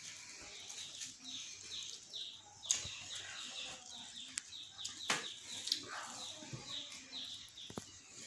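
Small birds chirping over and over in the background, quick short chirps repeating throughout. A few sharp taps cut in, the loudest about three and five seconds in.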